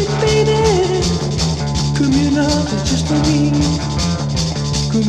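Rock record playing a passage without words: drums and guitars keep a steady beat under a lead melody line that slides down in pitch a few times.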